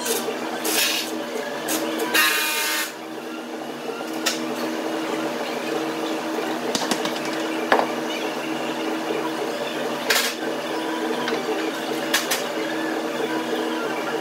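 Steady mechanical hum of workshop machinery, with a few short hissing bursts (the longest about two seconds in) and a couple of light knocks near the middle.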